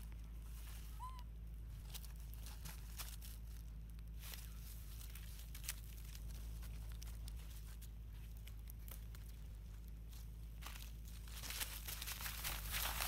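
Dry leaves and a plastic water bottle rustling and crackling in scattered small bursts as a baby macaque plays with the bottle, with one short high squeak about a second in. From about 11 seconds in the crackling of dry leaves grows louder and denser, like footsteps crunching through leaf litter.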